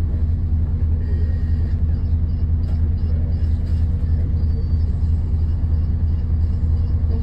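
Alexander Dennis Enviro400MMC double-decker bus idling while stopped: a steady, even low rumble.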